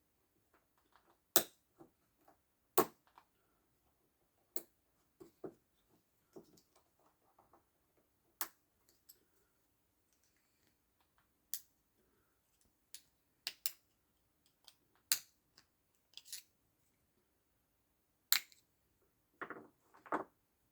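Sharp metallic clicks and snaps at irregular intervals, about a dozen, as a small pointed tool picks at the lock ring on the shaft of a Honda Miimo HRM 3000 wheel motor. Near the end come two duller, longer scraping sounds.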